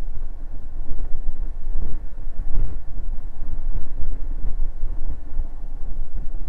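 Riding noise from a Honda Forza 125 scooter under way: wind buffeting the microphone in an uneven low rumble, over the scooter's running and road noise.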